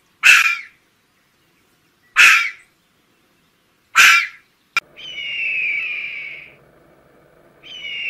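Red fox giving three short, sharp barks about two seconds apart. Then, from about five seconds in, dolphins whistling underwater: long whistles that fall slightly in pitch over a steady hum, one ending and the next starting near the end.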